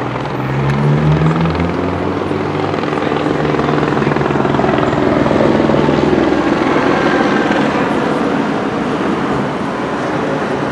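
A loud, steady engine drone with a low hum. The hum rises slightly in pitch about a second in and fades after about six seconds, leaving a broad rumble.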